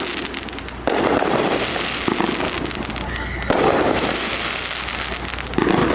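Fireworks going off in three sudden bursts, about a second in, midway and near the end, each followed by a couple of seconds of dense crackling.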